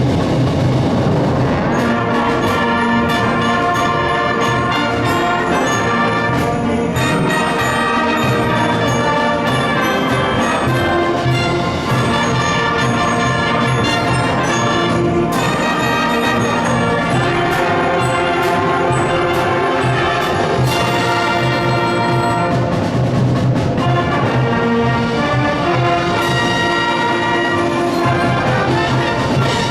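High school concert band playing the loud closing passage of a piece, brass to the fore, ending on a final cutoff.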